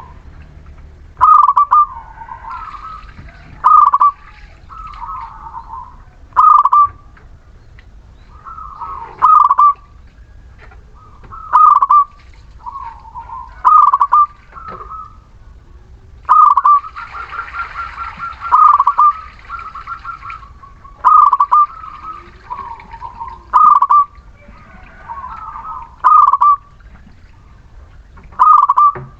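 Zebra dove cooing its song over and over, a loud phrase about every two and a half seconds. A longer, raspier rapid trill runs for a few seconds past the middle.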